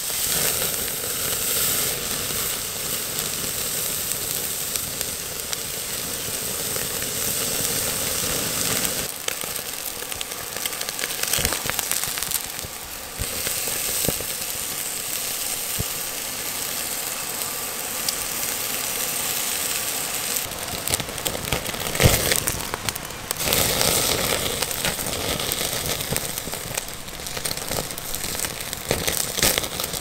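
Tomahawk steak sizzling on a grill grate over an open fire: a steady hiss with fat crackling and popping in the flames, and a sharper crack about 22 seconds in.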